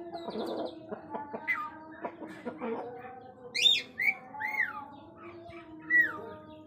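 Birds calling: several short, sharp calls that fall steeply in pitch, the loudest a little past the middle and again near the end, over fainter steady background sounds.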